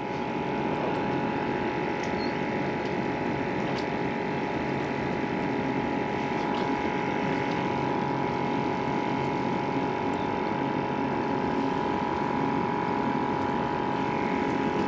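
A steady machine hum with a constant whining tone above it and a few faint clicks.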